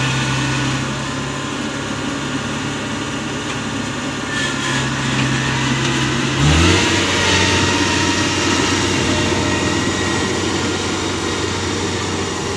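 Kubota DC68G Harvest King crawler combine harvester's diesel engine running as the machine moves off along the road. About six and a half seconds in, the engine note changes abruptly to a deeper pitch and briefly gets louder.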